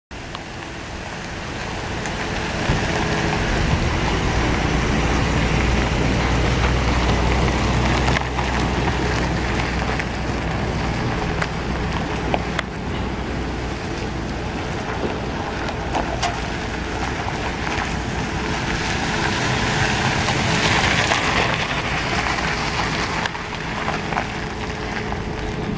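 Pickup truck's 5.7-litre V8 running at a steady idle, its low hum under a loud rushing hiss, with a few sharp clicks. The sound cuts in abruptly and builds over the first couple of seconds.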